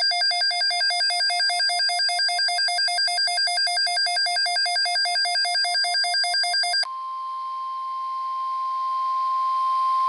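Emergency alert tones on a weather radio broadcast. First comes a warbling electronic alarm that switches rapidly between tones, about five times a second. About seven seconds in it changes abruptly to the steady single-pitch 1050 Hz warning alarm tone of NOAA Weather Radio, which slowly grows louder; it marks the start of a new alert.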